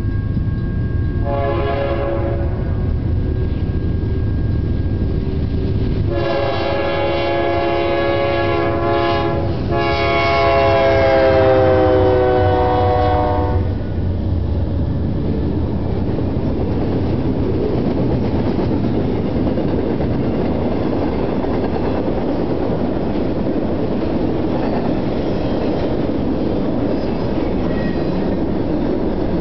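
BNSF freight train led by GE C44-9W diesel locomotives: engine rumble and a short blast of the multi-tone air horn, then a long horn chord that drops in pitch as the locomotives pass. After that comes the steady rumble and clatter of intermodal railcars rolling by on the rails.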